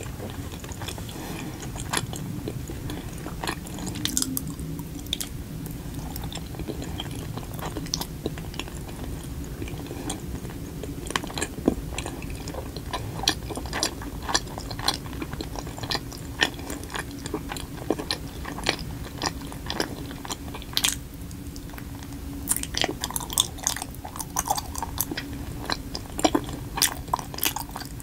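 A person chewing a soft persimmon rice cake: a stream of small mouth clicks and smacks that comes faster over the last several seconds.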